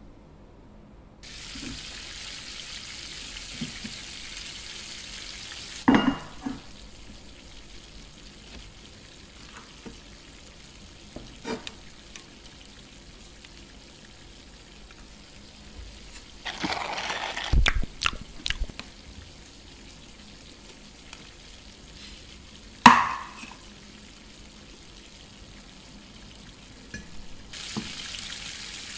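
A frying sizzle, a steady hiss for the first few seconds that stops and then returns near the end. In between come handling sounds: a knock about six seconds in, a short scraping rustle around seventeen seconds, and a sharp knock around twenty-three seconds.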